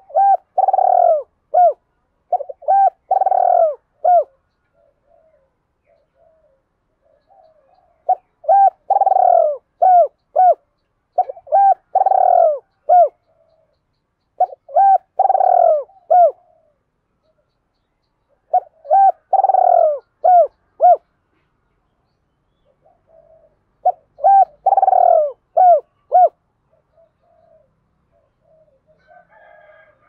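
Spotted dove cooing: about six runs of several short coos each, with pauses of a few seconds between them. These are the 'thúc' driving and two-ending ('hai hậu') calling coos of a decoy dove, used to provoke wild doves.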